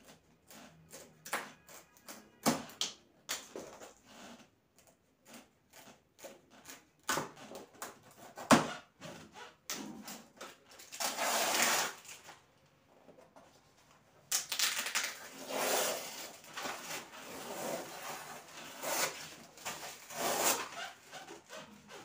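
Cardboard refrigerator carton being unpacked: scissors snipping and clicking on the plastic packing straps, with a sharp knock about eight seconds in, then long tearing and rustling as tape and paper are pulled off the cardboard.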